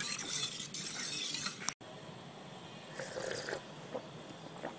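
Steel ladle stirring watery yogurt in a steel bowl, with liquid swishing and light clinks of metal on metal. The sound cuts off abruptly about two seconds in, leaving only faint noise.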